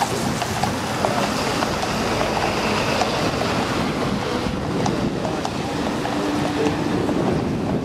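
Steady rushing noise of wind buffeting the microphone, with a faint steady hum for about a second near the end.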